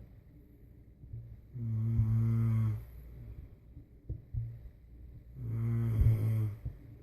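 A sleeping person snoring: two low-pitched snores about four seconds apart, each lasting about a second, with a couple of faint clicks in the quiet between them.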